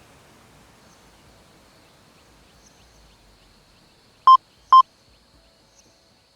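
Two short electronic beeps about half a second apart, about four seconds in: an alert tone from earthquake-monitoring software signalling a newly detected quake. Otherwise a faint hiss with a faint steady high tone.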